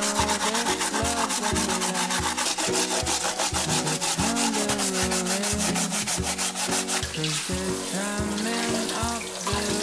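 A woven bamboo sieve scrubbed by hand in a basin of water: fast, even rasping strokes over the bamboo weave, several a second. About seven seconds in the strokes give way to tap water running as the sieve is rinsed.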